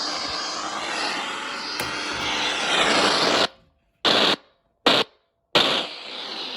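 Radio static hiss from a receiver being adjusted. It cuts out suddenly about three and a half seconds in, comes back in two short bursts, then returns.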